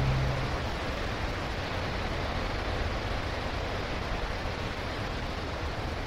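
Steady wash of noise like surf or wind, part of an instrumental music track, after a held low chord cuts off just after the start.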